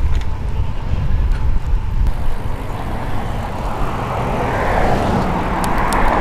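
Wind buffeting a helmet-mounted action camera's microphone while cycling, with the noise of a passing motor vehicle swelling from about halfway through and loudest near the end.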